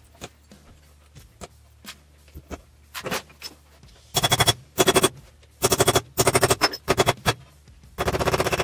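Small hammer peening solid copper rivets on a bench block. After a few scattered light clicks, rapid runs of quick light taps with a metallic ring start about halfway through, and one longer unbroken run of taps comes near the end.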